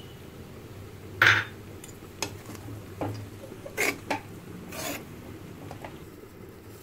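Steel spoon scraping and clinking against a metal kadhai as poha (flattened rice) is stirred, in irregular strokes with the loudest scrape about a second in.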